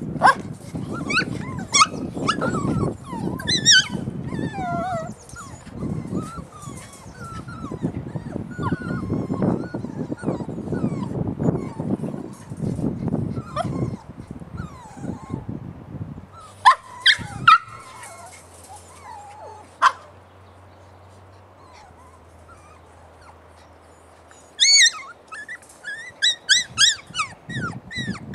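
A litter of young puppies yipping, whining and giving short high barks, busy and overlapping for the first half. A quieter spell follows past the middle, then a quick run of high yips near the end.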